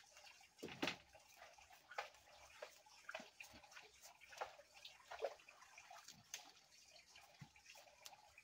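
Crabs being washed by hand in water: irregular light splashing and dripping, with small clicks.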